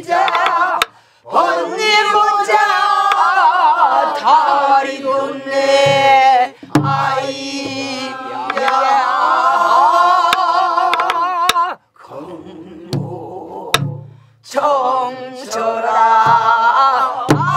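Korean Namdo folk singing: a woman's voice leads long, slowly wavering, heavily shaken notes, with other voices singing along. A buk barrel drum marks the rhythm now and then with low palm thumps and sharp stick clicks. The singing dips briefly about two-thirds of the way through.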